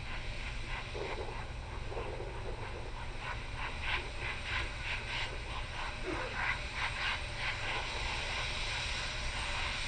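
Open-air ambience of a waiting crowd: scattered faint, distant voices and calls over a steady low hum.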